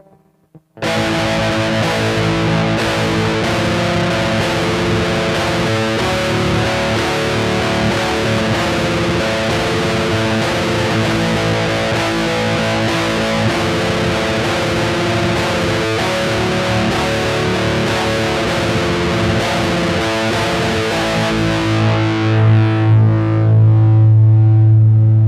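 Electric guitar through heavy distortion, playing sustained chords and held notes. A strong low note comes in near the end, and the sound cuts off abruptly.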